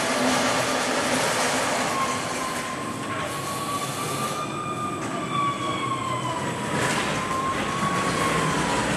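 Cobra III rotary arm stretch wrapping machine running, a steady mechanical noise. About two seconds in, a high whine joins it and wavers slightly up and down in pitch.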